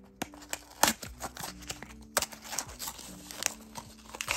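A small cardboard blind box being opened by hand: the seal peeled off and paper and card rustling and crinkling, with scattered sharp clicks, the loudest about a second in and again about two seconds in.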